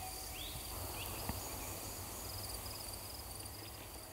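Evening meadow ambience: insects trilling steadily in a high pitch, with a couple of short bird chirps about half a second and one second in.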